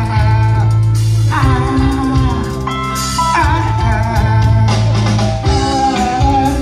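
Amplified song played loud: a lead voice sings over sustained keyboard-like chords, a steady bass line and drums.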